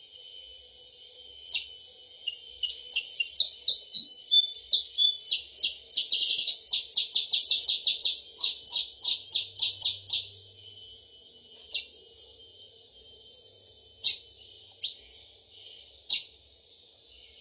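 Recorded lure song of the kutilang sutra (percang), a small songbird: sharp, high chirps, scattered at first, then a fast run of repeated notes from about three to ten seconds in, then scattered single chirps again. A steady high-pitched drone runs underneath.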